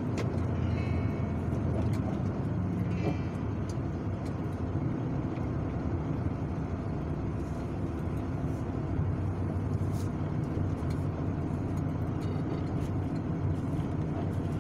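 Container truck's diesel engine running under way, a steady low rumble heard from inside the cab, with two short high squeals about one and three seconds in.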